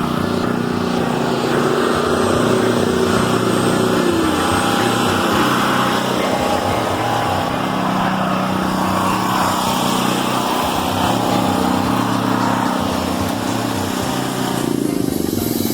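Carpet-cleaning machine running steadily, a continuous motor and vacuum drone with a slight dip in pitch about four seconds in.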